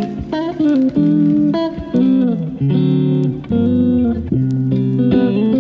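Background music: a guitar-led instrumental track with bass, plucked notes changing every fraction of a second.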